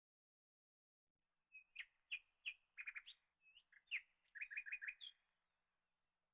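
A bird chirping: a string of short, sharp chirps beginning about a second and a half in, ending in a quick run of about five notes, then stopping.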